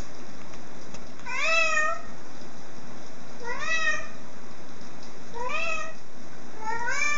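Domestic cat, black and white, meowing four times, about two seconds apart; each meow rises in pitch.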